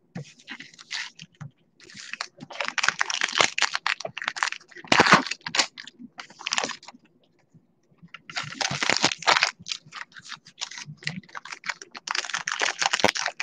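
Trading-card pack wrappers crinkling and cards being handled, a crackly rustle with many small clicks in two stretches with a short quiet gap near the middle.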